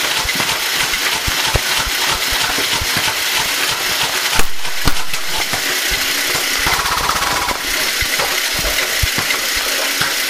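Small electric 3-channel coaxial RC helicopter running close by: a steady buzzing rush from its motors and rotors, broken by scattered short clicks and knocks.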